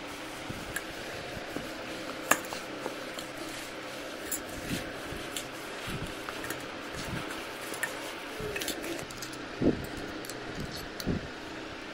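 Steady fan hum under scattered small clicks from hands working potato-and-sago dough in a steel plate. Near the end come a few louder knocks as a spoon hits the inside of a steel grinder jar.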